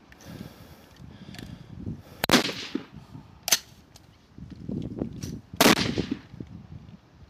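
Three rifle shots on a high-power match firing line: sharp cracks with short echoing tails, about a second and then two seconds apart. The first and last are the loudest.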